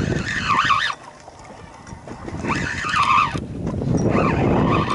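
Spinning reel being cranked in three spells as a fish is reeled up, its gears whirring with a pitch that rises and falls with the cranking speed.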